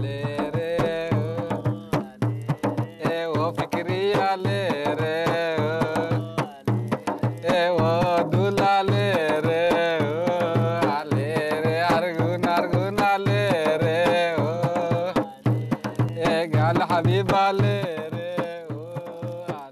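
Singing of an ornamented melody, its pitch wavering and sliding, over a steady hand-drum beat of a few strikes a second; the drum drops out briefly twice.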